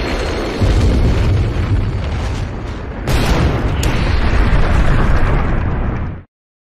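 Animated magic-blast sound effect: a loud, dense explosive rumble that surges about half a second in and again about three seconds in, then cuts off abruptly into silence near the end.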